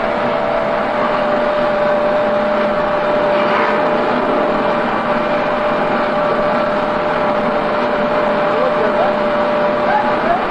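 Steady foundry noise: a continuous roar with a constant whine held through it, and a few short squeaks near the end.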